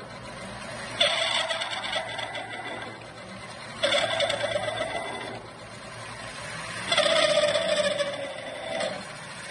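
Metal lathe running with a large twist drill in the tailstock boring into a spinning aluminium workpiece. The drilling noise comes on sharply three times, about a second, four seconds and seven seconds in, each lasting a second or two over the steady hum of the lathe.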